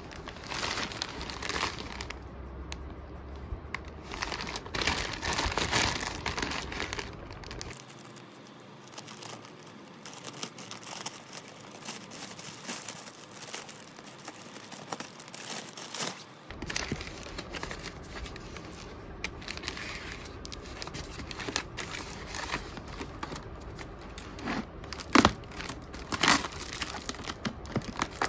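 Plastic packaging crinkling and tearing as a courier mailer and the plastic bag inside are pulled open by hand. Near the end there are a few sharp snips of scissors cutting through clear plastic air-cushion wrap.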